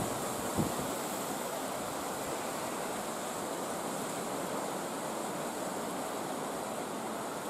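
Steady outdoor background noise, an even hiss, with a faint knock about half a second in.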